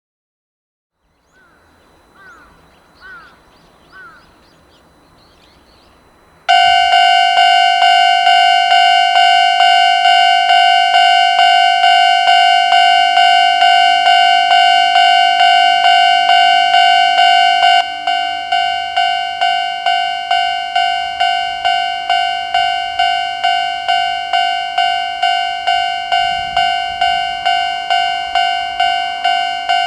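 Japanese railway level-crossing warning alarm with the older standard electronic tone. It starts suddenly about six seconds in and rings at about two strokes a second, then drops a little in level around eighteen seconds in.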